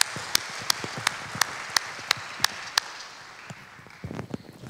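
Audience applauding, with one set of sharp claps standing out at an even pace of about three a second. The applause dies away about three seconds in, and a few soft knocks follow, with a louder knock at the very end.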